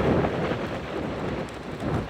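Strong wind buffeting the microphone: an irregular, gusting rumble.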